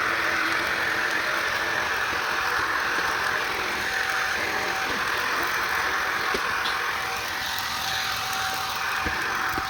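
Shark vacuum cleaner running steadily: a constant motor hum under the rush of air, with a few faint clicks.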